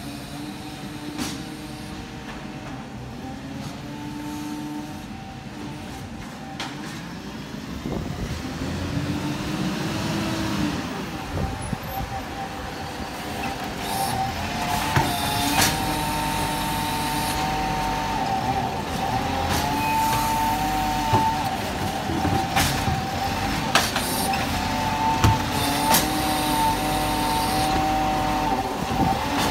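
Volvo side-loader garbage truck running, getting louder as it pulls up, with a pitch sweep about a third of the way in. Then its automated bin-lifting arm works alongside a row of wheelie bins, bringing a steady whine and several sharp clunks.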